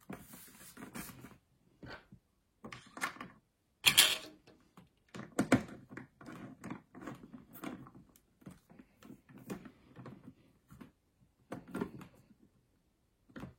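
Plastic clicks, taps and knocks of a motorcycle helmet visor being pressed onto its side pivot mechanisms, in short irregular bursts, the sharpest about four seconds in.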